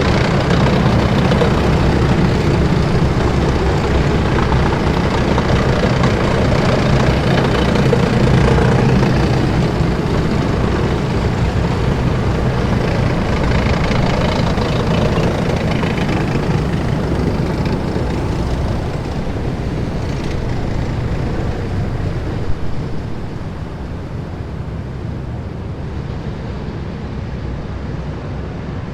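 A column of heavy military vehicles driving past: a continuous rumble of big engines and tyres, loudest over the first ten seconds and then slowly fading as the column moves away. There is one short knock about 22 seconds in.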